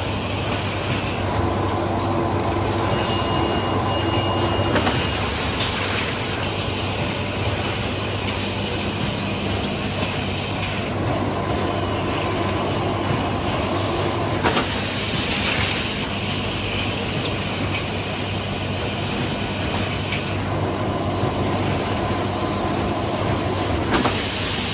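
Continuous din of a running Cornetto cone filling and packing line: a steady low hum under a broad hiss, with scattered sharp clicks and clatter from the robot grippers and conveyors. A short high whistle sounds about three seconds in.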